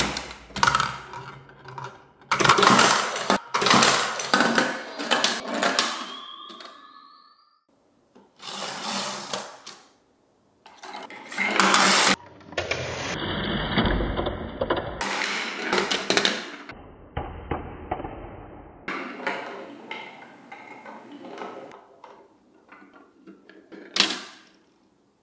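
Marbles rolling and clattering through a plastic VTech Marble Rush marble-run track, with rattling runs and sharp clicks and knocks as they drop and hit track pieces. The sound stops dead twice in the first half, and a few steady high tones sound near the middle.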